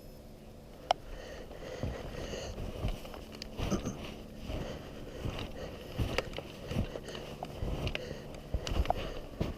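Snow crunching and clothing and gear rustling close to the microphone, with irregular soft thumps and a sharp click about a second in.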